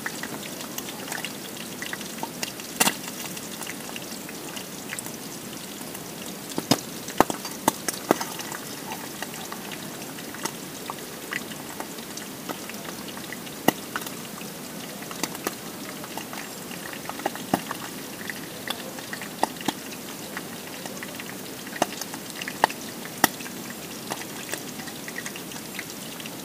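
Oil frying in a small pot on a portable gas camping stove: a steady sizzle with frequent irregular sharp pops and spatters.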